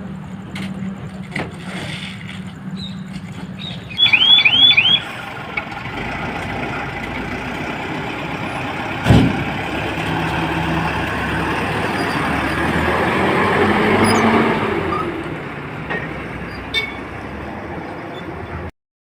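Road traffic noise: vehicles running steadily, with a short loud warbling horn or siren about four seconds in and a sharp knock about nine seconds in.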